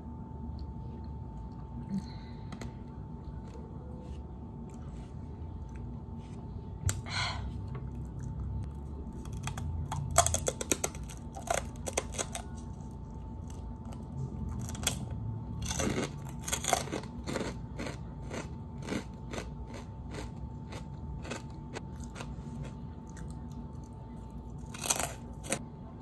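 Close-up crunching and chewing of crispy fried snack pieces: irregular sharp crunches begin about seven seconds in, come thick in two spells, and end in a loud pair of bites near the end.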